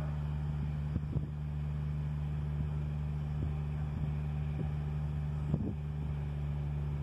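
A vehicle engine idling steadily, with a few short gusts of wind bumping the microphone.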